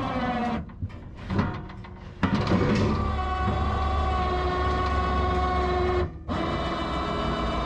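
A machine motor with a steady hum runs in bursts. It cuts out for about a second and a half soon after the start, with one short burst in the gap, then runs steadily and drops out again briefly near the end.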